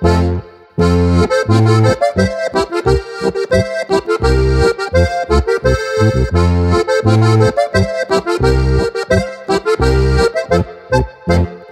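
Steirische harmonika, a Styrian diatonic button accordion in G-C-F-B tuning, playing a Boarischer dance tune: a melody over bass notes on a steady beat, after a brief break in the playing in the first second.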